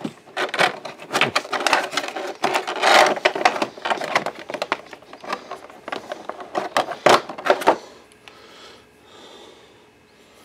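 Thin moulded plastic packaging tray crackling and clicking as a shotgun microphone and its cable are pulled out of it, with rustling and a few sharper knocks. It goes quieter for the last two seconds or so.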